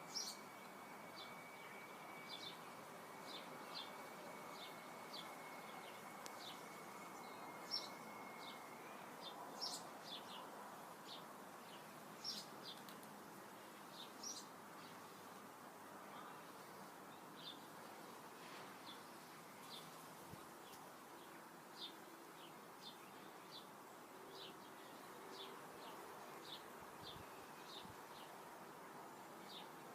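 Birds chirping after rain: short high notes come and go throughout, over a soft background hiss. A faint steady high whine runs under them and stops about nine seconds in.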